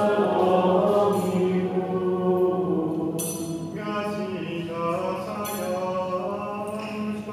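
Gregorian chant sung by the canons' voices, a slow melodic line with a steady low note held underneath.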